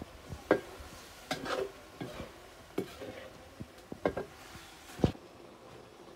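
Metal spatula scraping and knocking against a steel kadai (wok) as a thick meat curry is stirred, in irregular strokes that stop about five seconds in.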